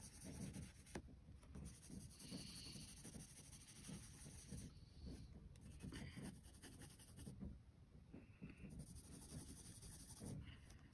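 Graphite pencil shading on sketchbook paper: faint scratching in many short back-and-forth strokes, with a few brief pauses.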